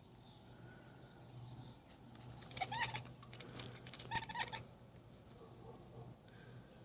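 A domestic cat chattering at birds: two short bursts of rapid clicking mixed with little chirpy calls, about two and a half and four seconds in.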